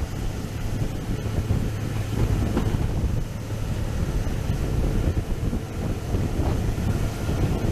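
Sri Lanka Railways Class W3 diesel locomotive under way, a steady low engine hum mixed with the rumble of the running train, with wind buffeting the microphone.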